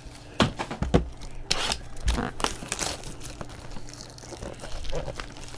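Plastic shrink-wrap on a trading card box crinkling and tearing as it is pulled off, with a run of sharp crackles and snaps.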